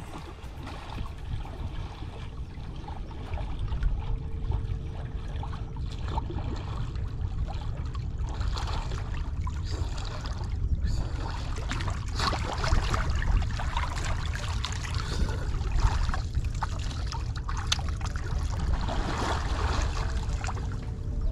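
Sea water splashing and lapping among shore rocks, with irregular splashes from a swimmer's strokes farther out. A steady low rumble of wind on the microphone runs underneath.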